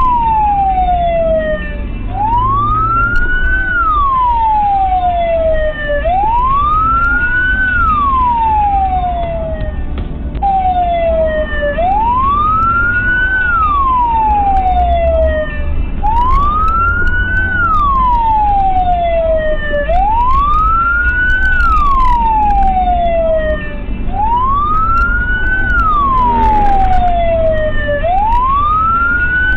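Emergency siren wailing in a slow, repeating cycle: a quick rise in pitch, then a longer fall, about every four seconds, over the low rumble of a car on the road.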